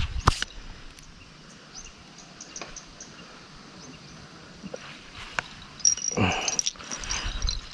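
Faint high chirping of insects and birds, broken by a sharp click just after the start and a spell of rustling and knocking from handling gear about six seconds in.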